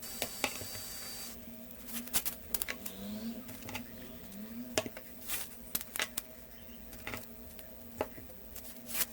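Masking tape being pulled off the roll with a hiss for about the first second and a half, then crinkles, clicks and taps as it is torn and pressed down around a phone, over a low steady hum.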